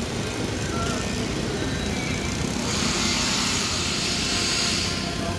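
Steady outdoor site noise with road traffic, with a hiss that swells about two and a half seconds in and fades before the end.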